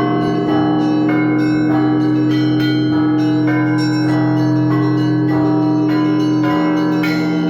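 Russian Orthodox monastery bells rung by hand from a belfry: quick strikes of the smaller bells, a few a second, over the steady hum of the larger bells.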